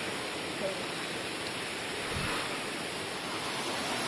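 Steady rushing of a stream and waterfall, flowing water as an even hiss.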